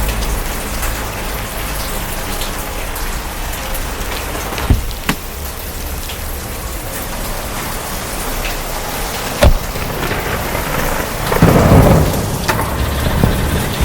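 Steady rain heard from a car while driving, over a low rumble. There are a few sharp knocks around the middle, and a louder low rumble swells about 11 seconds in.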